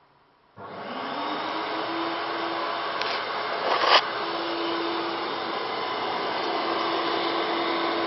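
An electric fan-driven machine switching on about half a second in, its motor hum rising to a steady pitch and then running steadily with a strong rush of air. There is a brief louder burst just before the four-second mark.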